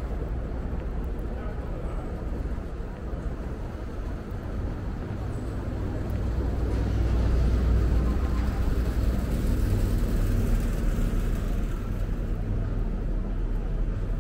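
City street traffic rumble, steady and low, swelling as a motor vehicle passes close by in the middle and fading again towards the end.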